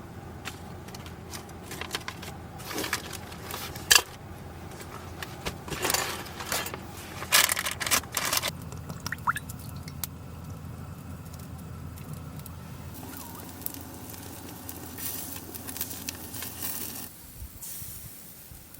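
A steady low hum with scattered clicks, rattles and rustles of objects being handled; the hum cuts off suddenly near the end.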